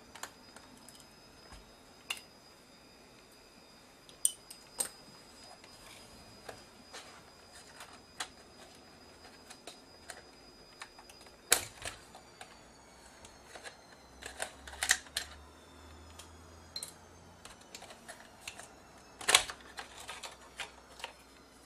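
Scattered small clicks and taps of a screwdriver, screws and plastic housing panels as the bottom covers of a Sony PMW-EX1 camcorder are unscrewed and worked loose. Two sharper clicks, about halfway and near the end, are the loudest.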